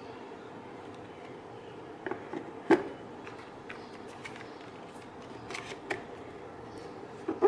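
Unboxing handling noise: scattered clicks, taps and knocks of a box and its contents being handled, the sharpest knock a little under three seconds in, over a steady background hiss.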